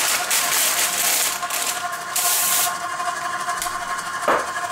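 Aerosol cooking spray hissing onto parchment paper in short bursts over the first two and a half seconds, over the steady whine of a KitchenAid stand mixer's motor whisking dry ingredients. A single knock sounds near the end.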